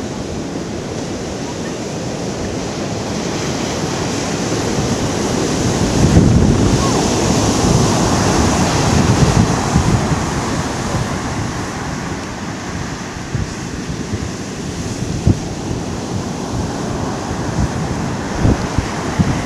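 Heavy hurricane-driven surf breaking and rushing up an ocean beach, with wind buffeting the microphone. The surf swells to its loudest about six seconds in and then eases off. Sharp gusts knock on the microphone in the last few seconds.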